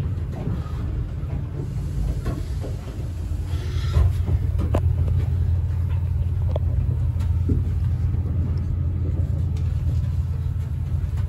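Steady low rumble of a Chiltern Railways Mark 3 passenger coach running along the rails, heard from the door vestibule, a little louder from about four seconds in, with a few sharp clicks in the middle.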